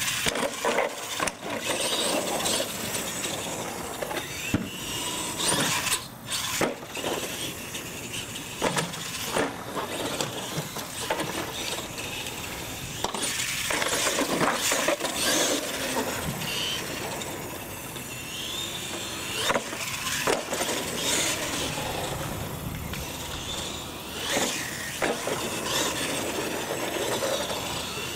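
Radio-controlled monster truck running a freestyle course on concrete: its motor whines up and down in pitch as it speeds up and slows, with tyres scrubbing and repeated sharp clatters as it lands off ramps.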